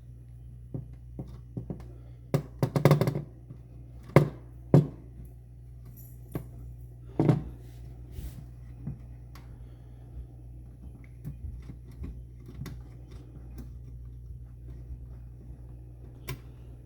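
Scattered clicks and knocks of a screwdriver, loose screws and sheet-metal parts being handled inside a laser copier, a cluster of them about three seconds in, over a steady low hum.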